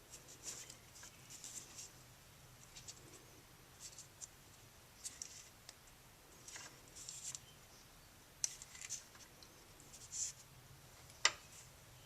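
Faint, scattered scratching and small clicks of fingers working a stretched rubber seal ring down a plastic sleeve on a gearbox shaft, with one sharper click near the end. A faint steady low hum sits underneath.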